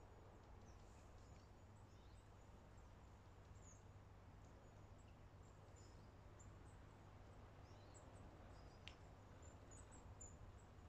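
Near silence: faint outdoor ambience with scattered, distant high bird chirps over a low steady rumble, and one faint click about nine seconds in.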